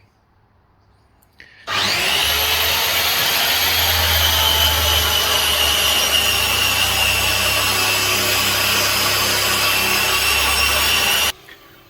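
A power tool's electric motor starts about two seconds in, settles to a steady high whine and runs for about nine seconds, then stops suddenly.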